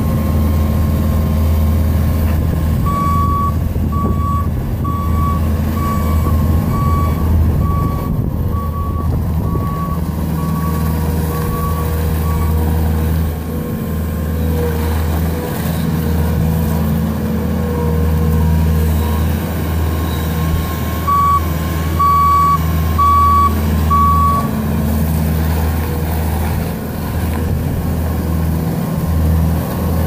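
Bobcat S770 skid-steer loader's diesel engine running steadily while it works. Its backup alarm beeps at a steady pace, a little faster than once a second, in two spells: about ten beeps from a few seconds in, and four or five more past the two-thirds mark, as the machine reverses.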